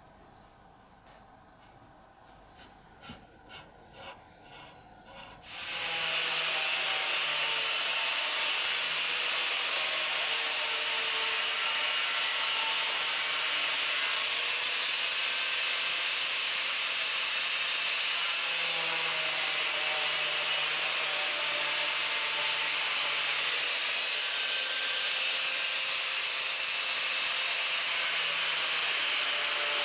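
A few light knocks, then about six seconds in a power tool starts up and runs steadily with a high, slightly wavering whine as it cuts a piece of plastic fairing to a template.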